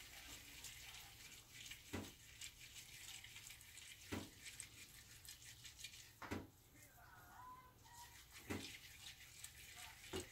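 Faint rubbing and crackle of salted dried gourd strips (kanpyo) being kneaded by hand, in soft strokes about every two seconds. The salt kneading is done to give the strips elasticity.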